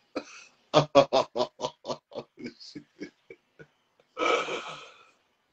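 A man laughing hard: a run of about a dozen rapid 'ha' pulses, about four a second, that fade away, then a long breathy sound about four seconds in.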